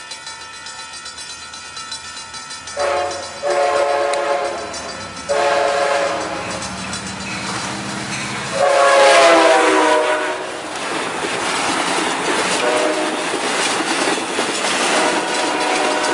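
Coaster commuter train's diesel locomotive sounding its horn in a series of blasts, one short and then several long, as it runs through the station. The loudest blast falls in pitch as the locomotive passes close by, followed by the rumble and clatter of the bilevel cars going past.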